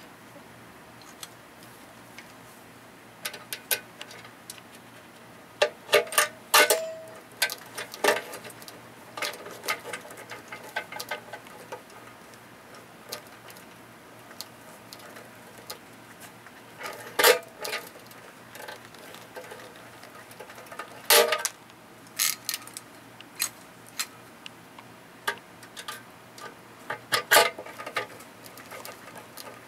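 Hand blind-rivet (pop rivet) gun squeezed stroke after stroke, setting rivets through a metal hinge leaf into an aluminium post: scattered metallic clicks with about four louder, sharp cracks as rivet stems snap off.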